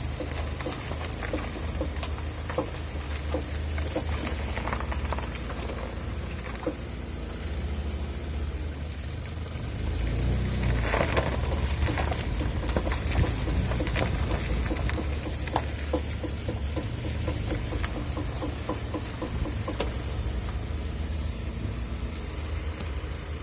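Mitsubishi Pajero iO running, a steady low rumble with repeated short knocks from underneath the car, which the owner takes for a worn driveshaft universal joint (crosspiece). The sound swells louder about ten seconds in.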